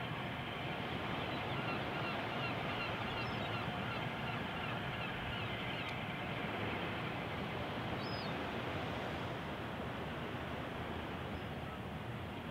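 Gulls calling, a quick run of short cries about two seconds in and one more around eight seconds, over steady background noise.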